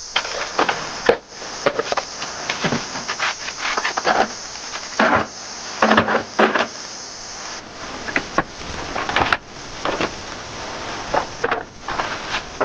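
Pieces of wood being handled and worked by hand: irregular knocks, scrapes and rubbing in uneven bursts.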